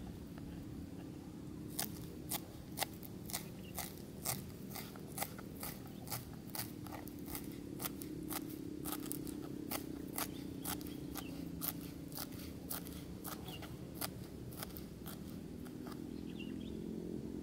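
A knife chopping green vegetables on a plastic cutting board: sharp, irregular chops at about two a second, starting about two seconds in and stopping near the end, over a steady low hum.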